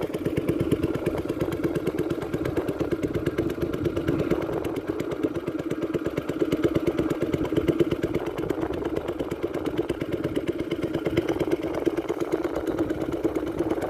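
Small boat engine running steadily, a fast, even putter.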